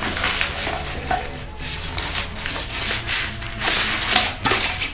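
A mesh storage pouch rustling and scraping as it is pulled up over a metal camping kettle, in several swells of rustle.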